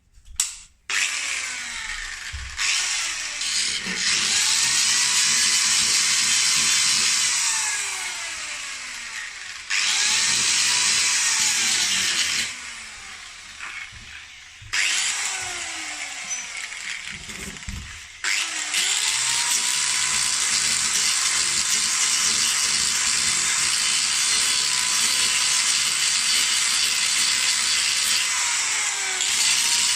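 Handheld power grinder grinding down the worn, enlarged edges around a refrigerator door hinge so it will seat properly. It is switched on and off several times, the motor pitch rising as it spins up and sinking as it winds down, with a long continuous run through the second half.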